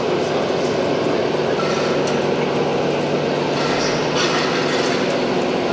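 Steady vehicle-like running noise of RC model trucks' engine-sound modules, over the background din of a busy exhibition hall.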